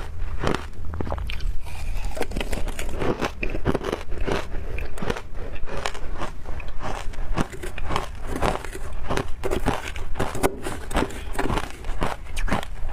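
Frozen ice being bitten and chewed: a steady run of crisp, irregular crunches, several a second.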